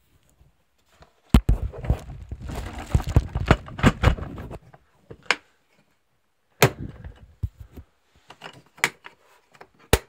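A plastic waste pail being handled: a sharp knock, a few seconds of plastic-bag rustling and clattering, a second knock, then light clicks from the lid's plastic clasp, the last one sharp.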